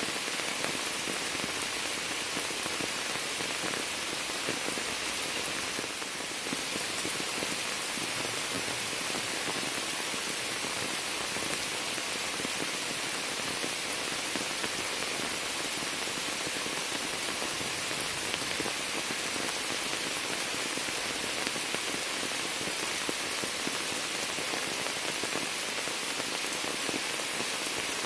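Steady rain falling on a sheet of standing water and on the leaves of a shrub, an even, unbroken hiss of countless drops.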